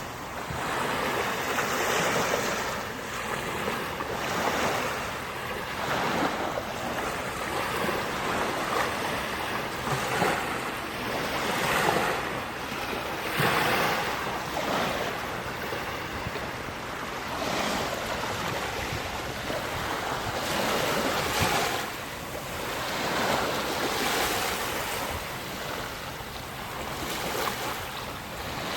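Sea waves breaking on the shore and washing back, in repeated surges every few seconds.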